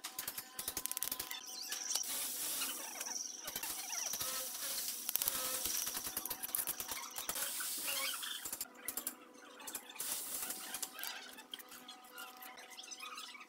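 Steel masonry trowel scraping mortar and tapping on red clay bricks as they are laid on a column: a stream of small scrapes, clicks and knocks.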